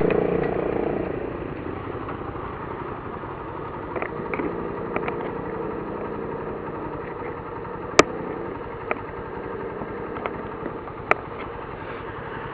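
A 150 cc motorcycle's single-cylinder engine running with its stock air filter fitted. The revs ease down over the first couple of seconds, then it idles steadily. A few sharp clicks or pops cut through, the loudest about eight seconds in.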